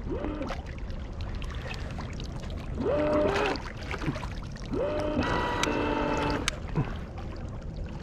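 Homemade electric outboard's brushless motor driving its water pump, whining up in pitch, holding and winding back down in three short throttle bursts, the longest about two seconds; water churns and sprays behind it.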